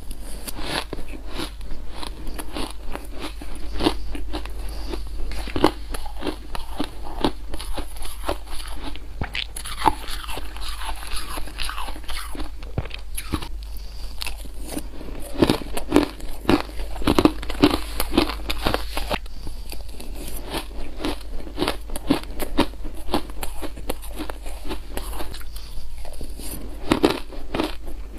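Close-miked mouth crunching and chewing spoonfuls of powdery frozen ice and crystallised ice chunks: a dense, irregular run of crisp crunches.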